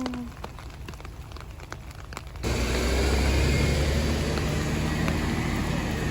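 Scattered raindrops tapping, then about two and a half seconds in an abrupt switch to a loud, steady rumbling noise of wind or traffic outdoors.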